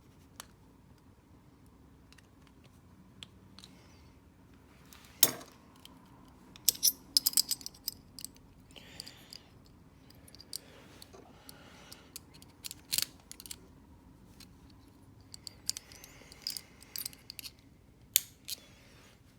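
Small metallic clicks and clinks of a pin tumbler cabinet lock and its parts being handled. They come irregularly, with a sharper click about five seconds in, a quick cluster around seven seconds and another clear click near thirteen seconds.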